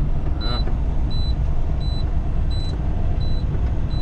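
Loaded semi truck's engine and drivetrain rumbling steadily, heard inside the cab as it climbs a hill, with a short high beep repeating about every two-thirds of a second.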